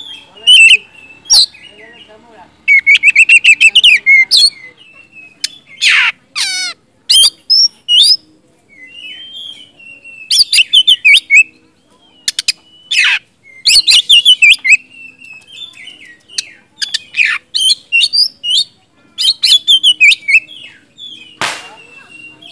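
Oriental magpie-robin (kacer) singing: bursts of rapid, varied whistled phrases with short pauses between, broken by a few harsh, scratchy notes.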